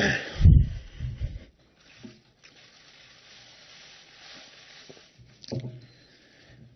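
A man's heavy breath and a bump on a close microphone at the start, then near-quiet while he sips water from a glass, with a short throaty sound near the end.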